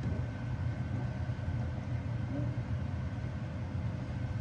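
Steady low mechanical hum with two faint, steady whining tones above it.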